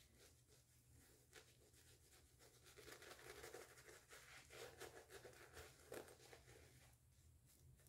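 Faint soft swishing of a shaving brush working shave-soap lather over the face, starting a couple of seconds in and stopping shortly before the end.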